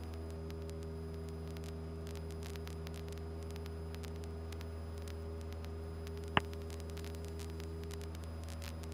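Cessna 172's engine droning steadily in flight, heard low and hissy as on the cockpit audio feed, with one sharp click about six seconds in.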